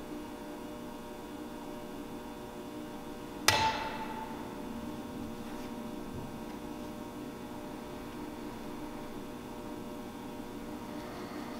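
A metal altar vessel clinks once, sharply, about three and a half seconds in, with a short ringing tail, over a steady hum.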